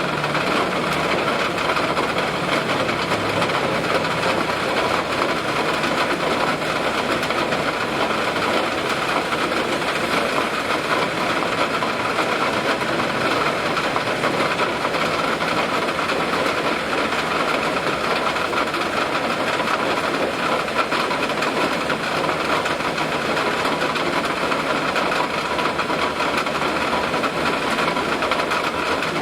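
Steady rain with wind, an even hiss that never breaks, and a faint low rumble that dies away in the first few seconds.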